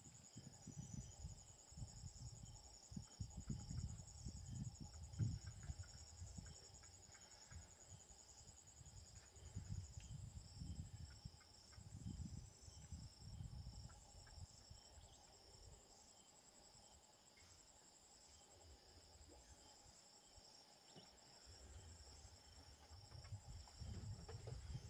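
Faint, steady high-pitched trilling of insects, with soft low rumbles coming and going underneath.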